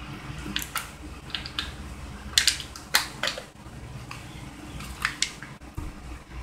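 Thin plastic water bottle crinkling and crackling while being drunk from and handled: a run of sharp, irregular crackles, the loudest about two and a half to three seconds in.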